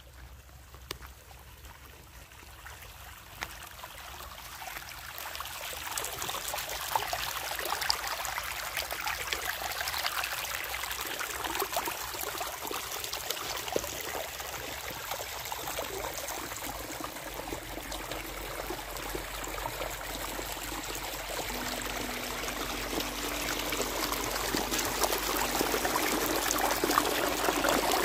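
Irrigation water flowing along an earthen field channel and spilling over a ploughed field, a steady rushing that grows louder about four seconds in and again near the end.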